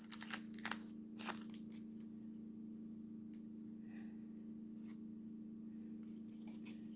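Faint crinkles and clicks of foil trading-card packs and cards being handled, several close together in the first second and a half, then only a few sparse ones, over a steady low hum.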